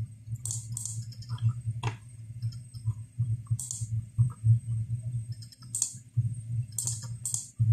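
Computer mouse clicking: several separate sharp clicks spread out, over a steady low hum.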